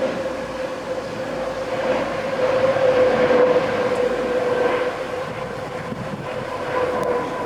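Airbus A320neo's Pratt & Whitney PW1100G geared turbofan engines on approach to land: a steady jet drone with a high whine that sinks slightly in pitch. It is loudest about three seconds in, then fades.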